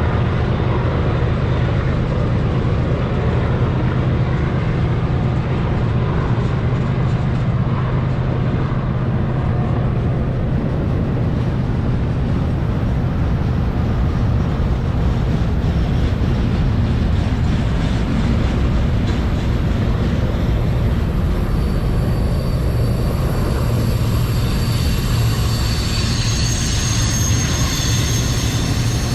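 Freight train with diesel locomotives running past in a steady low rumble. High-pitched wheel squeal comes in over the last several seconds.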